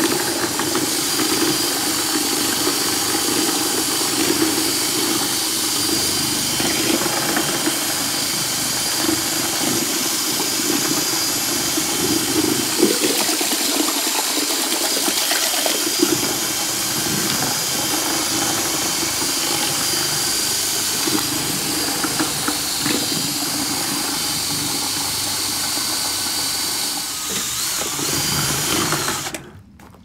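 Cordless drill running a paddle mixer through a bucket of paint, a steady motor sound that stops abruptly near the end.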